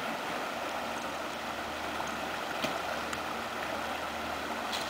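Gallatin River running fast over a rocky riffle: a steady rushing of water.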